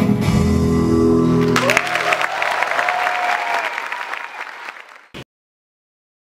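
Guitar-led dance music ends about one and a half seconds in, and an audience breaks into applause with a long cheer rising over it. The applause fades, and the sound cuts off to silence about five seconds in.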